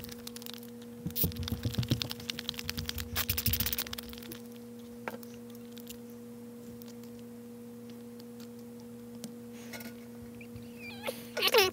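A screwdriver bit clicking and scraping in quick succession against a soft carburetor throttle-plate screw as it cams out and strips the screw head, over a steady two-tone hum. The clicking falls away after about four seconds, and a brief falling squeak comes near the end.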